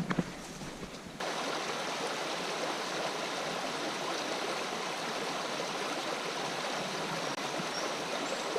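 Steady rush of flowing stream water that starts abruptly about a second in. Before it, a few light knocks sound over a softer wind-like rustle.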